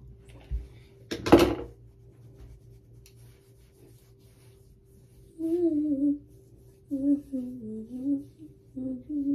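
A girl humming a tune to herself in short wavering phrases, starting about halfway through. A short loud breathy burst comes about a second in.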